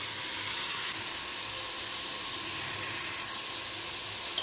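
Chopped tomatoes and onions frying in oil in a pressure cooker pot, a steady sizzle.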